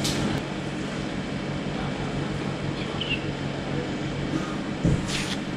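Steady low hum of an air conditioner running in the room, with a brief rustle near the end.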